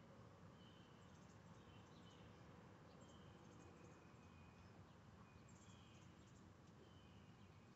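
Near silence, with faint short high chirps every second or so and a few soft ticks.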